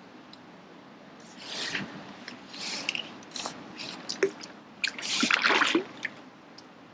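Water splashing and sloshing in short bursts, with a few sharp clicks: a hooked fish thrashing at the surface close to the bank as it is brought to the landing net. The splashing starts about a second and a half in and is loudest near the end.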